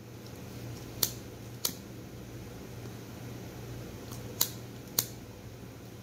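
A lighter struck to light a small cigar: four sharp clicks, two in the first couple of seconds and two more about half a second apart near the end, over a faint steady low hum.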